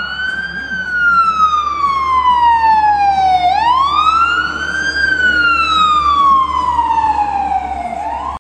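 Emergency vehicle siren wailing: a loud tone that rises quickly and then falls slowly, about every four and a half seconds. It cuts off suddenly at the end.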